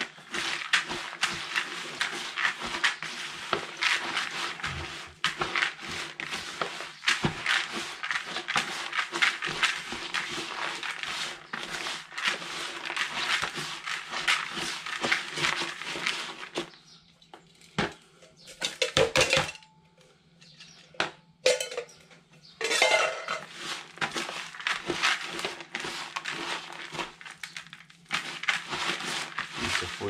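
Hand stirring and kneading a damp mix of fishing pellets, hempseed and groundbait in a plastic bucket: a dense gritty rattle and crunch of many small grains. It stops for several seconds just past the middle, with only a few scattered clicks, then starts again.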